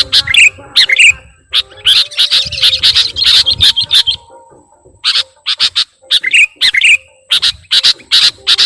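Sooty-headed bulbul (kutilang) lure calls played as bird-trapping bait: loud, sharp chirps in fast runs, with a dense chattering stretch in the middle and short lulls. Faint steady tones sit underneath.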